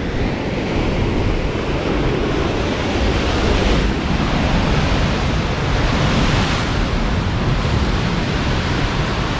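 Heavy ocean surf crashing against a rocky cliff coastline in rough seas, a continuous loud wash of breaking waves that swells as bigger waves come in, with some wind on the microphone.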